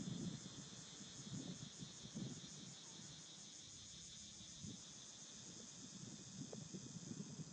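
Faint steady insect chorus, a high, finely pulsing drone, over a low uneven rumble that is strongest at the start and near the end.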